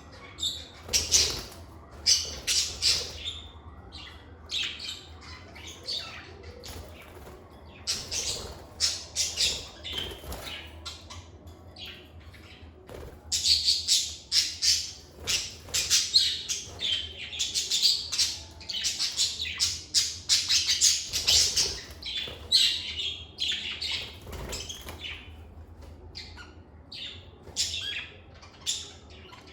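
Lovebirds chirping in rapid, overlapping short calls, busiest through the middle, with a steady low hum underneath.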